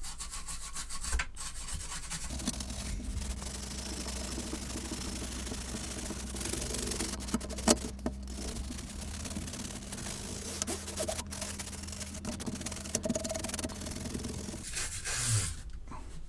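Toothbrush bristles scrubbing dust off the plastic case of a Commodore Plus/4, a steady brushing rub with a few sharp knocks against the case.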